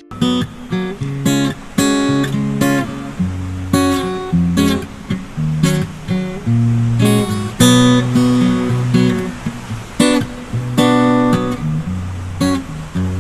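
Background music: a strummed acoustic guitar track over a bass line that steps through chords.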